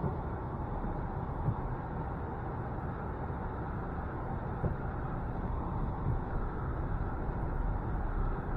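Steady low rumble of a vehicle in motion, with a few faint thumps.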